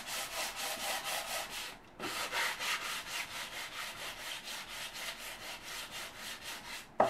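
Fine 2,500-grit wet-and-dry abrasive paper rubbed dry back and forth over the cast-iron top of a Morsø Squirrel stove, taking off surface rust. It makes a quick rhythmic rasping of about four strokes a second, with a short break about two seconds in.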